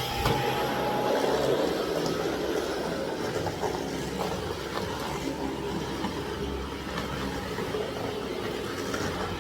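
Cordless Dyson vacuum cleaner running steadily while vacuuming.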